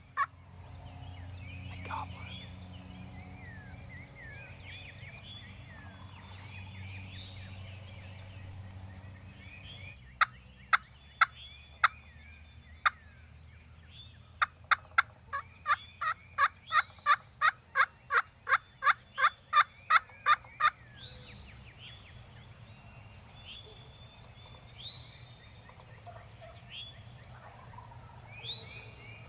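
Turkey yelps: a few single notes, then a long run of loud, evenly spaced yelps at about three a second, typical of a hunter's turkey call. Small birds chirp softly around it.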